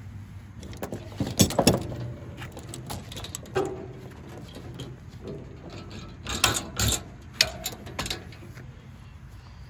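Steel chain clinking and rattling as the grab hooks of a lever-type load binder are hooked into it, with sharp metal clanks as the binder's lever is pulled over to latch the chain tight. The loudest clanks come about a second and a half in and again around six to seven seconds in.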